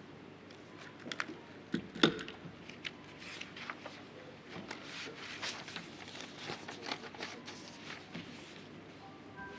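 Scattered knocks, clicks and rustling from people moving about a legislative chamber. The loudest is one sharp knock about two seconds in, and a denser patch of clicks follows in the middle.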